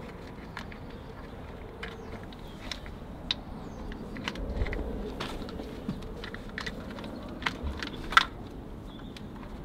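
Scattered light clicks and taps of a camshaft position sensor's wiring and plastic parts being handled in an engine bay, irregular, with a sharper click about eight seconds in and a soft low rumble about halfway through.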